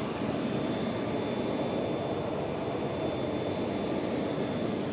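Steady running noise of a locomotive standing coupled to its train, with a faint high whine over it.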